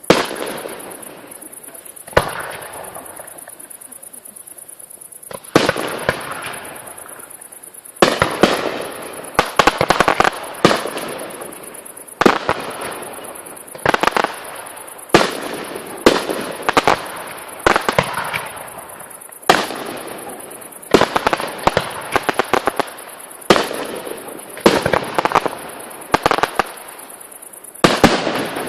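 Fireworks display: aerial shells bursting in a string of loud, echoing bangs at irregular intervals, with rapid crackling volleys in between.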